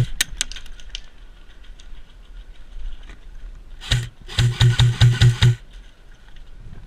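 Airsoft guns firing: quick strings of shots, each carrying a motor-like whir. One string comes right at the start, and a longer, louder one of about six or seven rapid shots about four seconds in.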